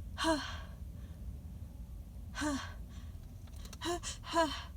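A woman's short voiced gasps, four of them, each dropping in pitch: the catching 'ah' breaths of a sneeze building up in her itching nose.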